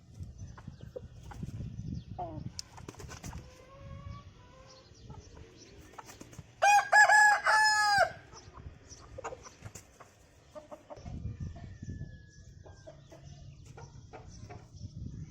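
An Aseel rooster crows once, loud and about a second and a half long, about seven seconds in. Other chickens cluck and call faintly around it.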